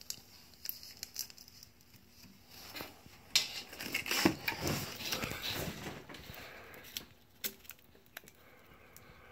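Handling noise of hands moving the camera and a wired LED module about: scattered small clicks and ticks, with a louder stretch of rubbing and rustling about three to six seconds in.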